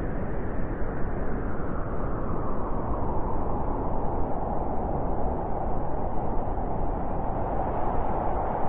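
Blizzard wind blowing steadily: a dense rushing noise, with a howl in the middle pitch that grows stronger from about three seconds in.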